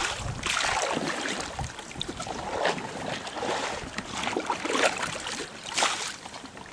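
Oars of an inflatable rowing boat dipping and pulling through river water, a splashy wash that swells with each stroke about every second or so.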